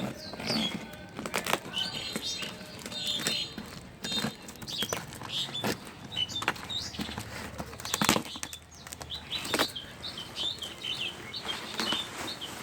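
Small birds chirping over and over in short, high calls, with scattered knocks and rustles.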